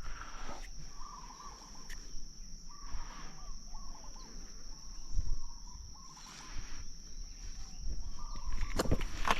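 Outdoor ambience: a steady high-pitched insect drone with small birds chirping over it, and a few soft rustling noises. Two sharp clicks come near the end.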